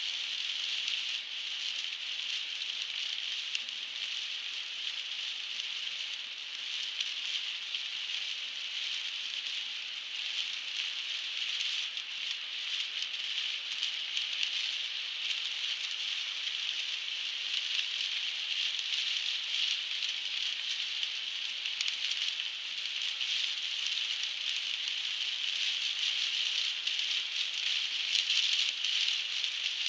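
Heavy rain hitting a car's windscreen and roof, heard from inside the moving car: a dense, steady crackle of drops.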